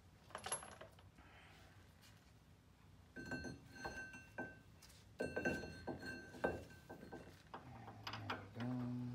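Metal clinks and ringing as a steel brake caliper bracket is handled and fitted against the hub of a front brake rotor. The ringing sounds at the same pitch in two bouts.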